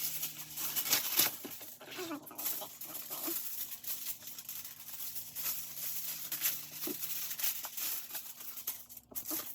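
Rustling handling noise with many small clicks and taps.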